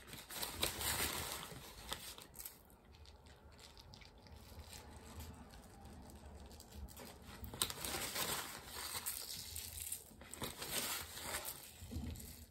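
Thin plastic bag crinkling in the hand as fine gravel-like scenery material is pinched out of it and sprinkled onto a glued diorama base, with a faint patter of grains; faint, in a few soft spells of rustling.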